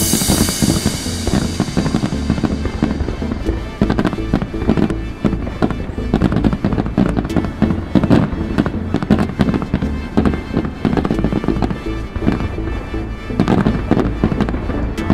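Fireworks display going off: a dense, irregular stream of crackles and pops, with a louder bang about 4 s in and a busier flurry near the end.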